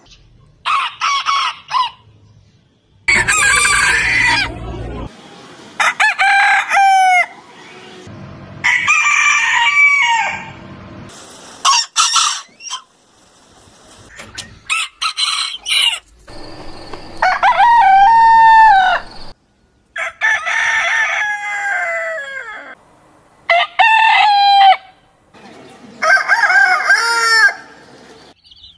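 Roosters crowing one after another, about ten crows in all, each lasting a second or two and falling in pitch at the end, with short pauses between them. The crows come from several different roosters.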